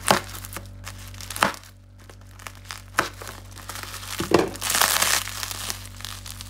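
Plastic parcel wrapping crackling as a knife cuts into it and fingers tear it open. There are a few separate sharp crackles, then a longer tearing rustle about four and a half seconds in.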